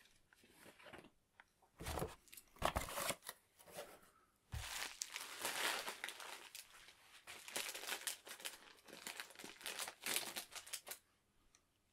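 Plastic packaging being crinkled and handled in irregular bursts of rustling and crackling, with a soft thump about four and a half seconds in.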